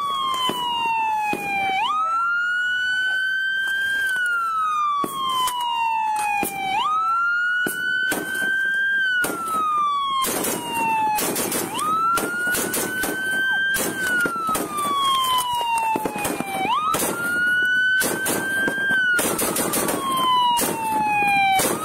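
Police car siren sounding a slow wail: each cycle climbs quickly, then falls away over about five seconds. Frequent irregular crackles and knocks sound through it.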